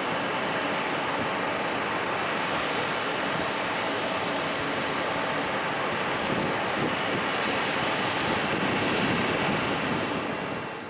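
Jet airliner engine noise, a steady rushing roar that swells slightly near the end and then fades out.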